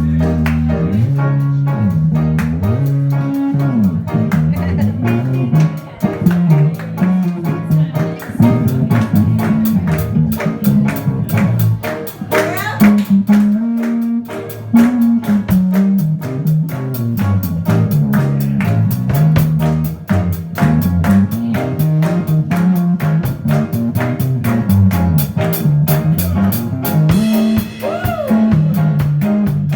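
Live blues band playing an instrumental passage: electric guitar and drum kit over a bass line that moves steadily from note to note.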